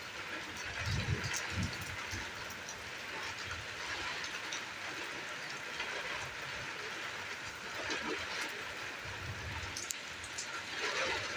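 Heavy rain falling steadily: a continuous hiss with scattered ticks of drops, and low rumbles about a second in and again near the end.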